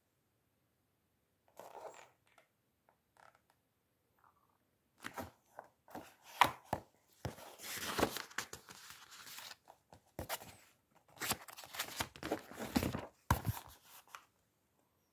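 Pages of a paperback book being handled and turned: paper rustling in short bursts, mixed with sharp clicks and knocks. There are a few faint rustles early, and it gets busy about five seconds in.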